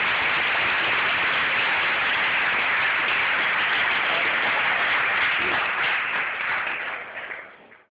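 Audience applauding in a large lecture hall after a thermite demonstration. The applause is steady, then fades away over the last couple of seconds.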